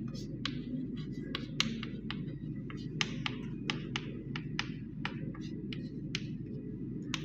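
Chalk tapping and clicking against a blackboard while writing, an irregular run of short sharp taps, a few a second, over a steady low hum.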